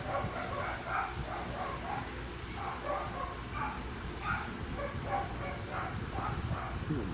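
Dog yipping and barking in quick, short, high calls, several a second.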